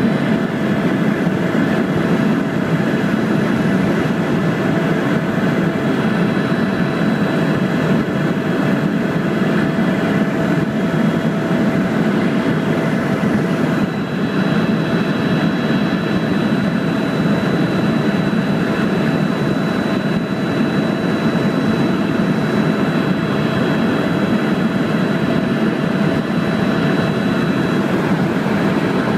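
Tour helicopter in flight: engine and rotor noise, steady and loud, with a thin high whine from the turbine held throughout.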